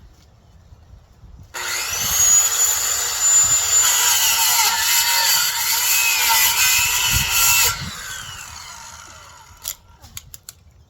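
Electric power saw starting with a rising whine about a second and a half in, running for about six seconds with its pitch wavering as it cuts through brush, then winding down. A few sharp clicks near the end.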